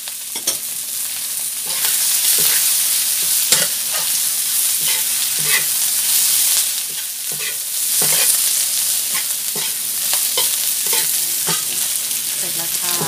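Radish cake with bean sprouts and spring onions sizzling as it is stir-fried in a wok, the spatula scraping and clanking against the pan many times over a steady frying hiss.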